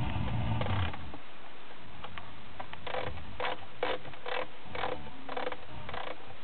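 Blaupunkt Twinceiver car radio being tuned down the FM band: faint station audio in the first second, then a run of short, evenly spaced bursts, about two a second, as it steps across frequencies.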